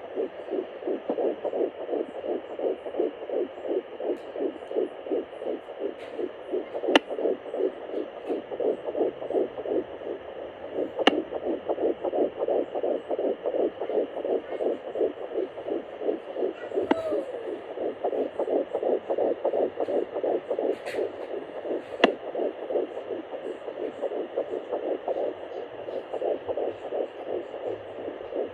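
A 10-week fetus's heartbeat heard through the speaker of a Sonoline B home fetal Doppler: a fast, even pulsing that goes on steadily, with a few sharp clicks along the way.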